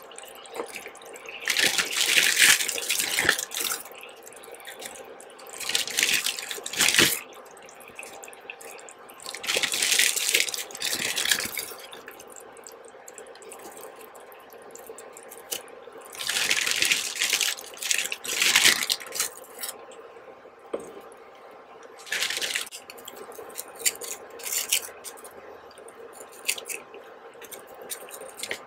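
Scallops sizzling in a hot frying pan of herb sauce: a steady hiss, with loud bursts of sizzling every few seconds as more scallops are laid into the pan.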